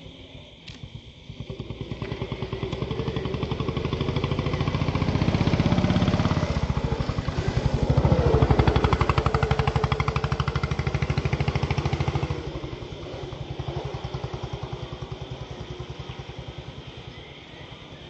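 A motor vehicle's engine passing by: its even pulsing grows louder from about two seconds in, is loudest around the middle, and falls away again about twelve seconds in.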